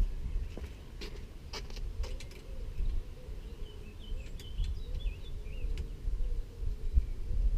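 Scattered light clicks and clinks over a steady low rumble, with faint bird twittering about halfway through.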